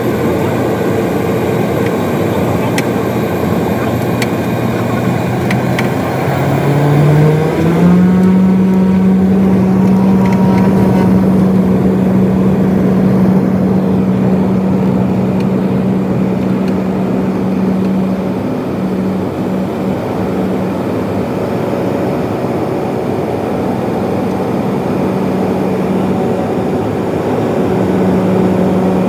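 Light aircraft's engine and propeller heard from inside the cabin, running at low power at first, then revving up about seven seconds in and holding a steady, even drone at takeoff power.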